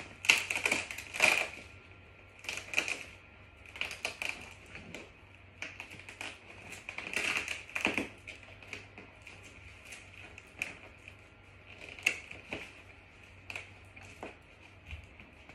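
Irregular clicks, taps and rustles of canvas and a carry handle being worked onto the top of a canvas laundry hamper. The loudest clatters come in the first couple of seconds and again around eight seconds in.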